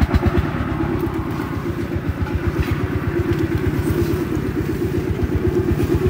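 An engine running steadily with a fast, even chugging beat.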